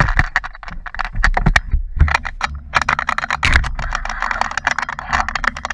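Wind rushing over an action camera's microphone during a paraglider launch, with a rapid, irregular clatter of clicks and knocks as the camera and gear jostle while the wing is pulled up and the pilot runs off the slope.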